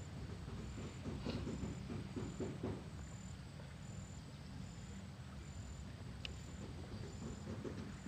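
An insect chirping high and steadily, about one pulse every three-quarters of a second, over a low steady rumble. A single short high note sounds about six seconds in.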